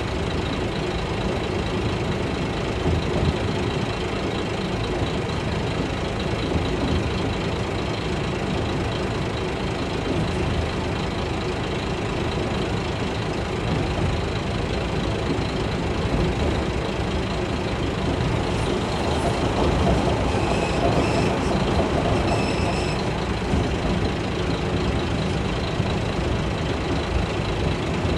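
Kashima Rinkai Railway 6000-series diesel railcar under way, heard from inside the passenger cabin: a steady engine drone mixed with wheel and rail noise. A brief faint high ringing comes through about twenty seconds in.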